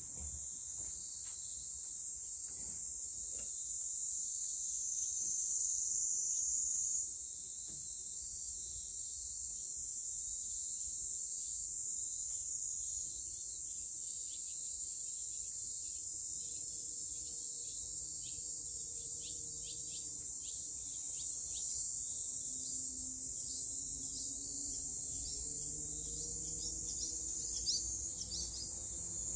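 A steady, high-pitched insect chorus, joined in the second half by many short, falling chirps from barn swallows. The chirps grow thicker near the end: the swallows are calling in alarm.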